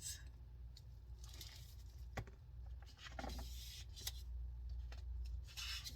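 Faint rustling and a few light, sharp clicks of a picture book's pages being handled, over a low steady hum.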